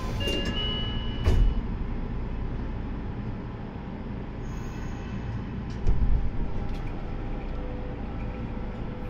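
Nagoya Municipal Subway Meijo Line 2000 series train running through the tunnel: a steady low rumble, heard from inside the car, with two loud thumps about a second in and about six seconds in.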